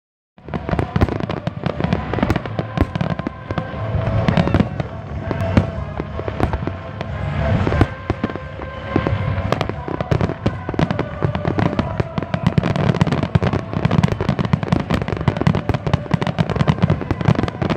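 Fireworks display: a dense, continuous barrage of aerial shell bursts and crackling, many sharp bangs a second.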